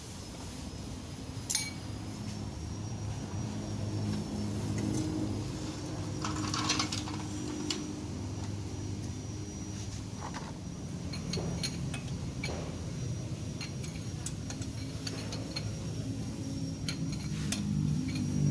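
Scattered metallic clinks and taps of a wheel wrench and lug nuts as a car's front wheel is refitted, over a steady low hum.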